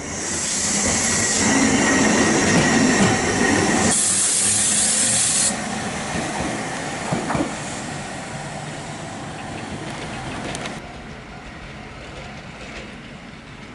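Hankai Tramway streetcar running on the rails: loud wheel-on-rail noise with a steady high squeal through the first four seconds, then quieter running with a few short clanks about seven seconds in, and a quieter stretch near the end.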